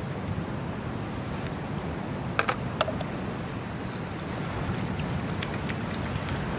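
Water pouring from a plastic bottle into a plastic container in the second half, over a steady low rumble of wind. A few sharp clicks come about two and a half seconds in.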